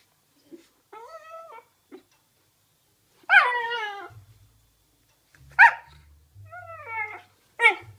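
Dogs playing: a string of about five high, bending yips and whines, the loudest a long falling yelp about three seconds in.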